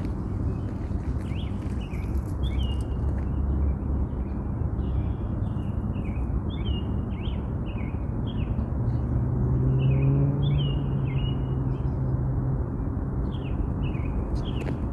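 Small birds chirping over and over in short, quick notes, over a steady low rumble. A low hum joins for a few seconds past the middle.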